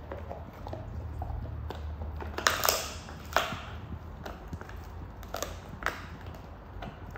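Pit bull chewing and crunching its food: irregular crunches and clicks, loudest about two and a half seconds in and again a second later.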